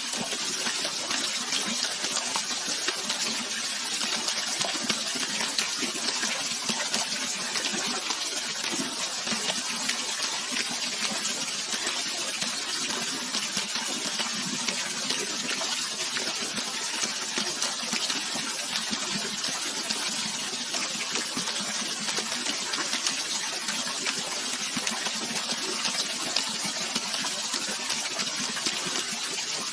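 Natural running water, a steady rushing hiss with little low rumble, unchanging throughout.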